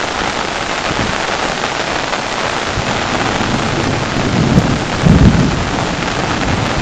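Steady heavy rain pattering, heard from under an umbrella. Low rumbling thumps swell up twice, about four and a half and five seconds in.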